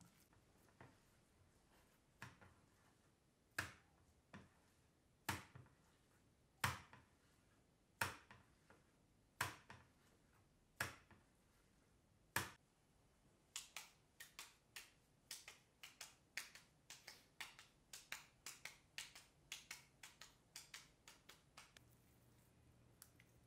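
Ground beef meatball mixture slapped from palm to palm to knock the air out, a sharp slap each time. At first about one slap every second and a half, then from about halfway in a quicker run of about three a second, stopping shortly before the end.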